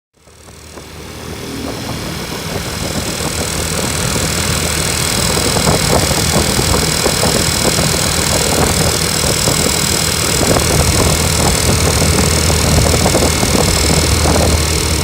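Honda Super Cub's single-cylinder four-stroke engine, bored up to 105 cc, running steadily at idle; it fades in over the first couple of seconds.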